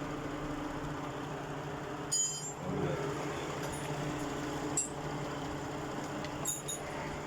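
Lexus RX330's 3.3-litre V6 idling steadily, running after its burnt wire harness and engine computer were replaced. Two short metallic clinks of tools sound about two seconds in and near the end.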